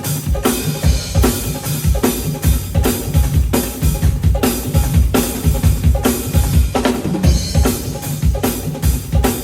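Drum kit played in a steady groove at a sound check, with regular kick drum and snare hits, some of them rimshots.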